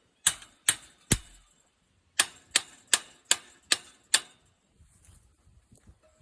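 Hammer striking the metal hinge fittings of a chain link fence gate to knock them into place: three sharp strikes, a pause of about a second, then six more at about two and a half a second.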